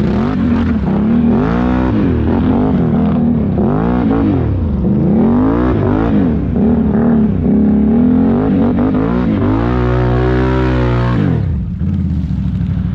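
Can-Am Renegade 1000 XMR ATV's V-twin engine revving up and down in repeated swells about once a second. Near the end it is held at high revs for about two seconds, then drops back.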